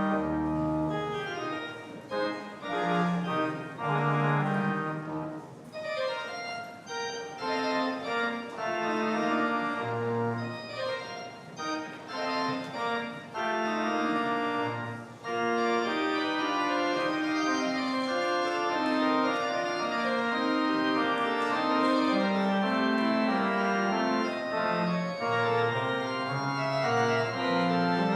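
Organ music: held chords changing one after another over a moving bass line, with a couple of short lulls in the first half.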